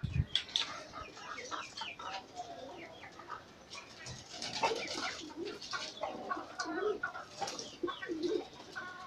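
Domestic pigeons cooing, with the coos clearest in the second half, over short splashes and wing flutters from pigeons bathing in a tub of water.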